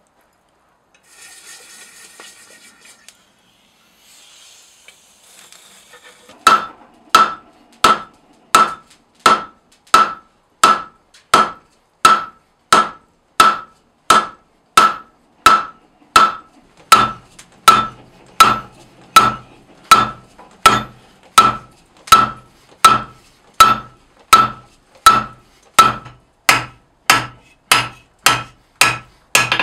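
Hand hammer striking a red-hot mild-steel bar on an anvil, starting about six seconds in after some faint rustling: a steady run of blows, about three every two seconds and slightly quicker near the end, each with a clear ringing anvil tone.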